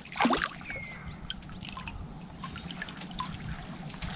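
Shallow water dripping and trickling, with small splashes and scattered light ticks as hands work down in it.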